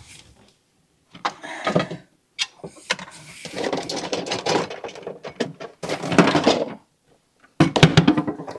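Food processor parts being handled: irregular clattering and clicking of the plastic bowl, lid and blade as the chopping blade is swapped for a whipping blade.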